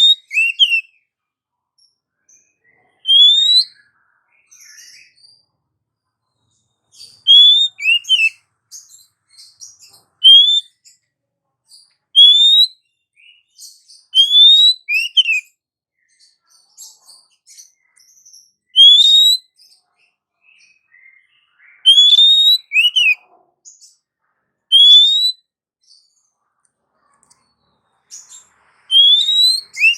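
Female oriental magpie-robin (kacer) calling to a male: short, loud, rising whistled notes, often paired with a quick falling note, repeated every second or two with brief pauses.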